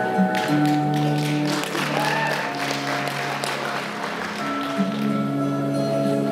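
Audience applause over soft ambient music with long held tones. The clapping rises about half a second in and dies away by about two-thirds of the way through, while the music runs on.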